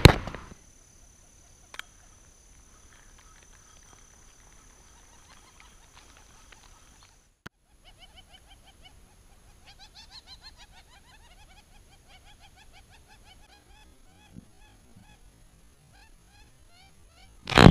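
Birds calling in runs of many short, repeated notes through the second half. Right at the end comes a loud, sharp snap as a fishing slingshot is shot.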